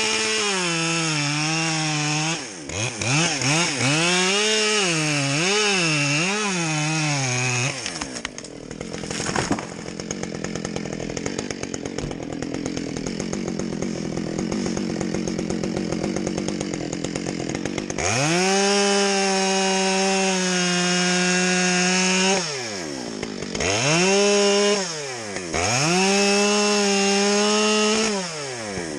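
Chainsaw cutting wood, its engine revving up and down several times, then dropping to a quieter, lower stretch in the middle, then held at full speed for long cuts broken by brief drops in revs near the end.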